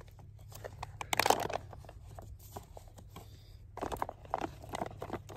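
Foil-lined freeze-dried meal pouch crinkling as it is held open, with a plastic spork stirring and scraping the rehydrated food inside. The loudest rustle comes about a second in, and another run of crinkles comes near the end.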